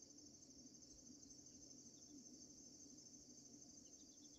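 Faint, steady insect chorus: a continuous high trill, with a few faint short chirps about two seconds in and near the end.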